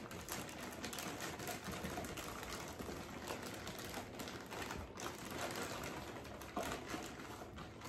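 Frozen tater tots pouring from a plastic bag into a casserole dish: a continuous rapid patter of small hard pieces clicking as they land on each other and the dish.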